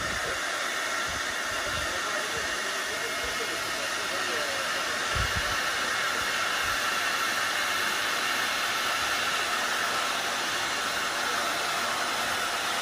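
Handheld hair dryer running steadily, a constant blowing hiss with no change in speed.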